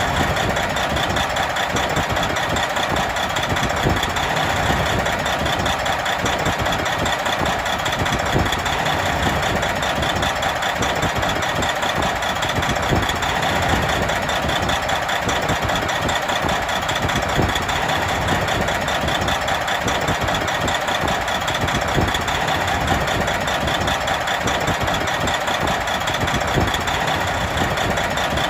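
Big truck's diesel engine idling steadily, with an even, rapid firing clatter.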